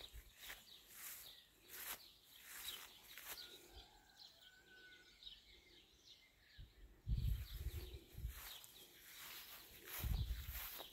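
Birds chirping, with soft, regularly spaced steps and two bursts of low rumble about seven and ten seconds in.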